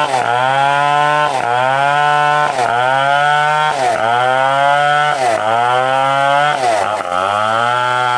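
Stihl 070 two-stroke chainsaw running hard, its engine pitch dipping sharply and climbing back about every second and a quarter as it cuts through a coconut palm trunk.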